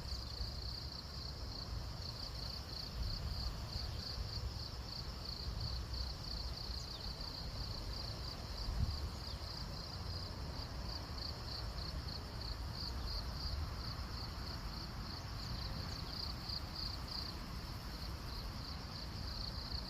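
Crickets chirping in daytime: an unbroken run of high, evenly repeated chirps. Under it there is a low rumble, with one brief thump about nine seconds in.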